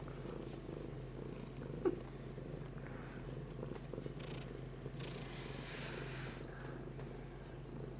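Ragdoll cat purring steadily, with a small click about two seconds in.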